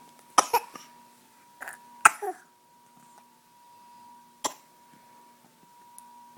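A baby giving several short coughs, a few in the first two and a half seconds and one more about four and a half seconds in, over a faint steady hum.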